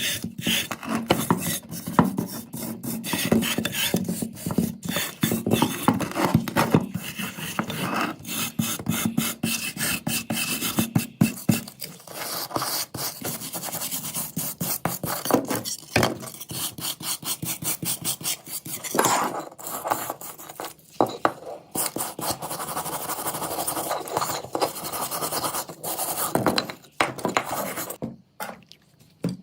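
Rapid, repeated hand rasping and rubbing strokes on parts of a rusty old 7mm gun as it is cleaned up for restoration, with a brief pause near the end.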